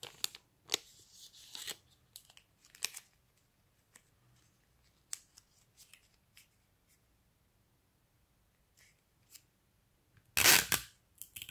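Thin plastic sheet crinkling and clicking as fingers roll it tightly into a cone: short rustles, busiest in the first few seconds and then sparse. About ten and a half seconds in there is one loud rasp lasting about half a second.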